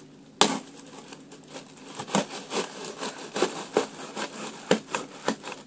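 Cardboard shipping box being handled and opened by hand: an irregular string of knocks, scrapes and crinkles as fingers work at the top flaps, with the sharpest knock about half a second in.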